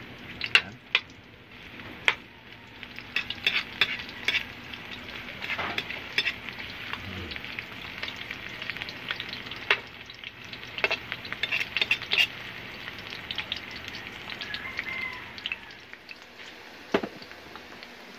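Garlic and onion sizzling in hot oil in a metal wok, with a metal ladle scraping and clinking against the pan now and then as they are stirred.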